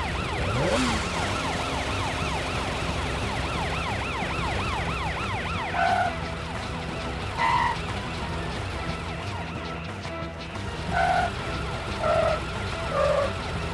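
Cartoon police car siren warbling rapidly up and down, strongest for the first five seconds and fainter after that, over a steady low rumble. Five short pitched notes at differing pitches sound in the second half.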